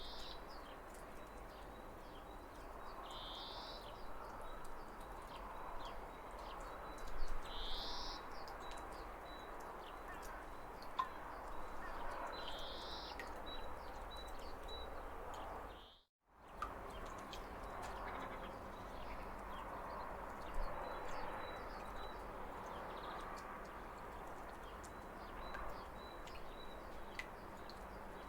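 Waterfall water rushing steadily, with birds chirping over it: a short rising call about every four to five seconds in the first half, and quick high chirps in a run. The sound cuts out completely for a moment about halfway through.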